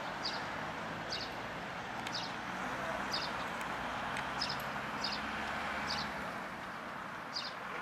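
Quiet outdoor ambience with a bird chirping, one short high chirp about every second.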